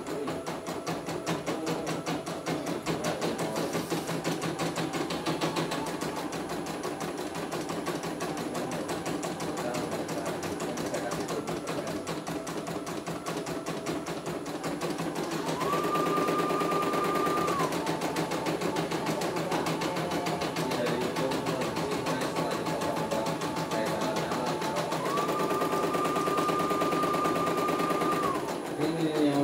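Computerized embroidery machine stitching a design: a fast, even chatter of needle strokes. A higher steady tone comes in twice, for about two seconds past the middle and about three seconds near the end, and the machine is a little louder while it sounds.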